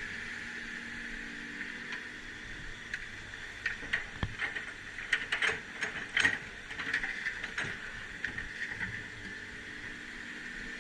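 Excavator working: a steady machine hum throughout, with a run of sharp clanks, knocks and cracks in the middle.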